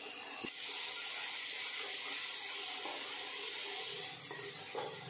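Onions, tomatoes and freshly added diced carrots sizzling in hot oil in a frying pan, a steady hiss, while a wooden spatula stirs them.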